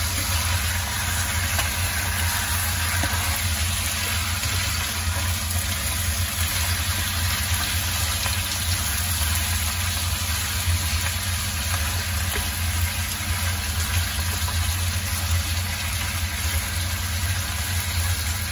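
Raw chicken pieces frying in garlic oil in a wok, with a steady sizzle, over a constant low mechanical hum.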